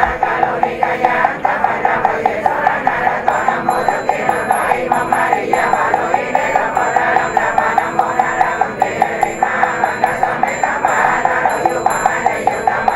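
Buddhist ritual chanting: a wavering chanted voice over a fast, even knocking beat of about five strokes a second, with a small hand bell ringing.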